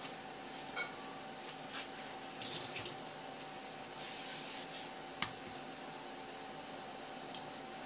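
Soft handling of wet garnish on a wooden cutting board: two brief hissing rustles, then a sharp tap about five seconds in, over a steady faint hum.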